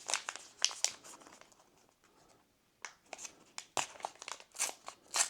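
Plastic foil booster pack wrapper crinkling and rustling in short, irregular crackles as it is handled, with a pause of about a second midway.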